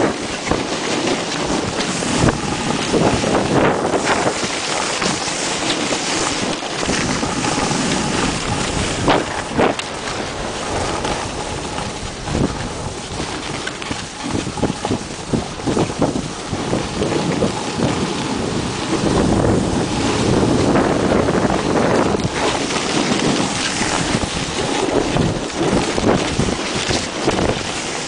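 Wind rushing over the microphone of a camera carried down the slope by a snowboarder, mixed with the hiss and scrape of the snowboard's edges on snow. The rush surges and eases every few seconds as the board turns.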